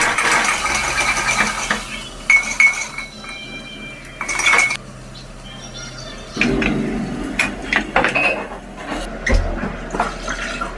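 Steel cooking utensils clinking, knocking and scraping against metal pots, several of the knocks ringing briefly.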